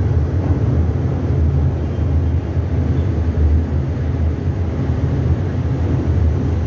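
Steady low rumble on board a moving boat: the vessel's engine droning, mixed with wind on the microphone.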